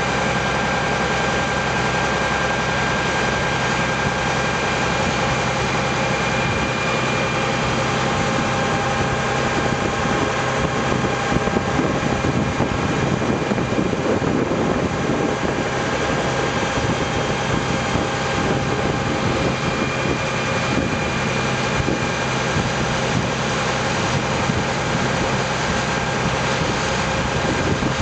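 Engine of a wooden longtail boat running steadily under way, a constant drone with several steady whining tones over a steady hiss.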